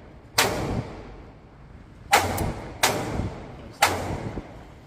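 Four gunshots from a short-barrelled 300 Blackout AR pistol, fired at uneven intervals, each with a ringing echo off the walls of the indoor range.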